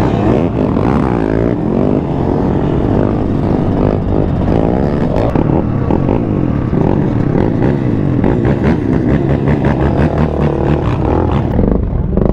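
Yamaha YZ125 two-stroke dirt bike engine being ridden, its pitch rising and falling over and over as the throttle opens and closes, then easing off near the end as the bike slows to a stop.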